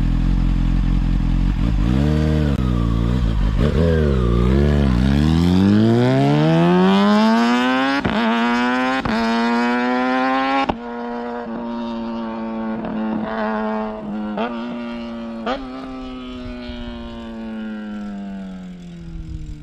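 Kawasaki ZX-6R 636 inline-four with an aftermarket exhaust: it idles, is blipped twice, then revs up in one long rising pull. About halfway through, the sound drops off suddenly and settles into a steadier, fading note that falls slightly near the end.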